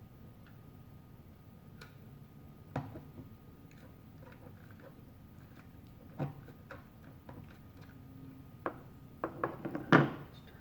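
Scattered small clicks and knocks of a screwdriver and hard plastic parts being handled while the Teddy Ruxpin toy is taken apart. A few isolated clicks come first, then a quick run of them near the end, ending in the loudest knock.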